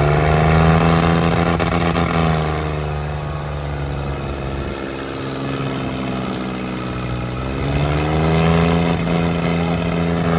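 Swaraj 855 tractor's diesel engine revving under throttle. It is held at high revs at first, drops to a lower speed about three seconds in, and rises and holds high again about eight seconds in.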